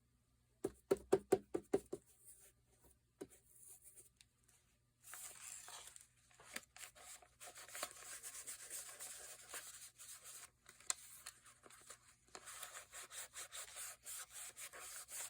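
A quick run of about eight light taps, then steady scratchy rubbing on paper or cardstock with small ticks in it, from hands or a tool working a paper craft piece.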